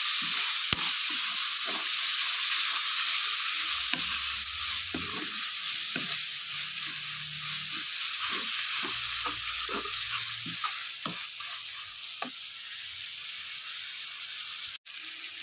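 Spinach frying in oil and masala in a steel pan, sizzling steadily while a spatula stirs it, scraping and clicking against the pan. The sizzle grows somewhat quieter in the second half.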